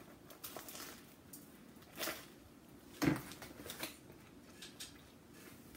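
Close-up chewing and crunching of a sandwich of toasted bread and fried soft-shell crab, with short louder crunches about two and three seconds in and a smaller one just before four seconds.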